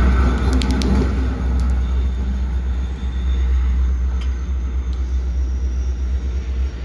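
Long Island Rail Road DM30AC dual-mode diesel locomotive pulling away with its train: a steady, deep rumble, with a few sharp metallic clicks about half a second in and once more near the middle, easing slightly toward the end.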